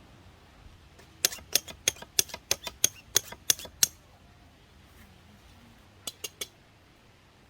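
A quick run of about ten sharp clicks or taps, then a short group of three more a couple of seconds later.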